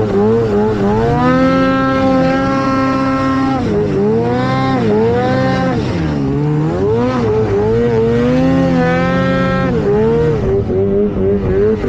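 Snowmobile engine running hard, its pitch climbing, holding and dropping several times as the throttle is worked.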